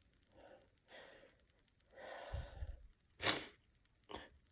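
Faint breaths and sniffs through a congested nose from a woman with a cold, building toward a sneeze brought on by Chhinkni sneezing powder. A short, sharp burst of breath comes about three seconds in, then another brief one near the end.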